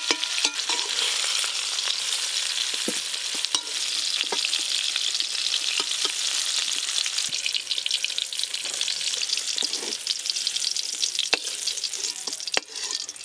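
Vegetables sizzling in hot oil in a wok as they are scooped out with a metal spatula, with scattered clicks and scrapes of the spatula against the wok and a steel plate. The vegetables are lightly fried and being taken off the oil.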